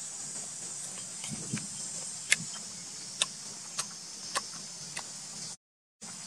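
A steady, high insect drone of crickets or cicadas, with a few sharp clicks and smacks scattered through it. The sound cuts out briefly near the end.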